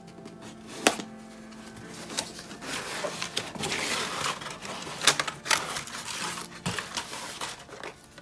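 A cardboard gift box being handled and opened: sharp taps and knocks of cardboard, loudest about a second in and about five seconds in, with a stretch of rustling and sliding as the lid comes off and the tissue paper inside is disturbed.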